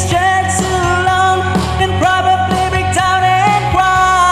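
A man singing a rock song along with a backing track, holding long notes that glide between pitches over the band accompaniment.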